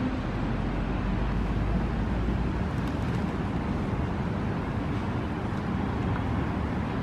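Steady outdoor city background noise: an even, low rumble of distant traffic with no distinct events.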